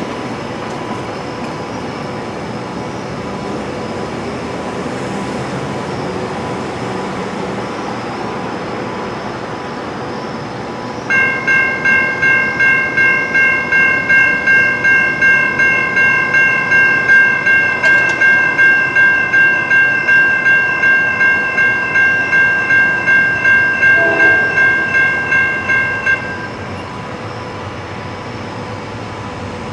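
Railroad bell ringing at about two strokes a second, each stroke decaying before the next, for roughly fifteen seconds in the middle. It stops near the end, over a steady noise that runs throughout.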